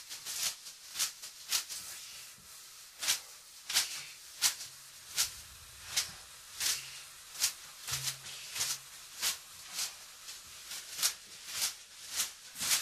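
A run of short, crisp slapping strikes, one or two a second at uneven spacing, bright and hissy in the treble, with a faint low hum partway through.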